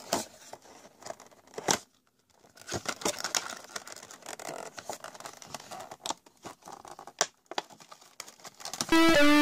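Cardboard window box being opened by hand, its flap and clear plastic tray scraping, crinkling and clicking, with a few sharp clicks standing out. Music with plucked guitar-like notes starts near the end.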